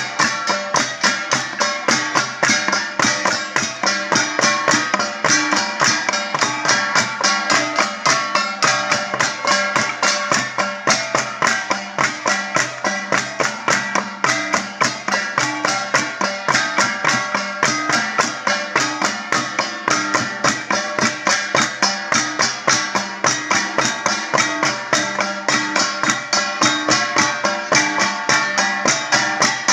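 Ifugao traditional music played on struck percussion, gongs: a fast, even beat of strokes, about four a second, with ringing pitched tones.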